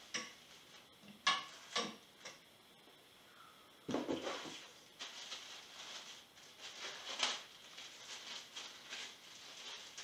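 Parts of a bicycle repair stand being unpacked: a few sharp clinks and knocks in the first two seconds, a louder clatter about four seconds in, then plastic packaging crinkling and rustling as a part is handled in its clear wrap.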